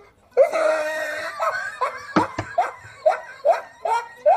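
A person laughing: a drawn-out voiced sound, then a run of short laughs at about two to three a second. A sharp knock comes about two seconds in.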